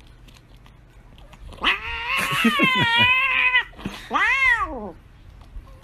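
Domestic cat yowling in protest as a lickable treat stick is pulled from its mouth: one long wavering yowl, then a shorter call that rises and falls.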